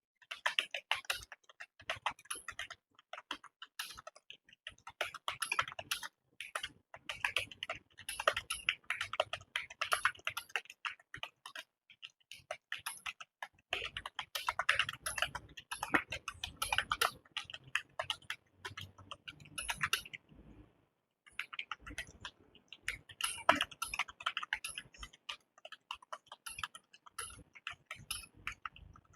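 Fast typing on a computer keyboard: a dense, continuous patter of key clicks that starts suddenly, with a brief pause about two-thirds of the way through.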